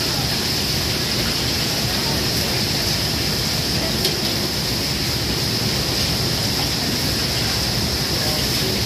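Steady rushing hiss of gas wok burners and the kitchen's extraction hood running, with beef sizzling in a wok. A metal spatula taps and scrapes the wok a few times.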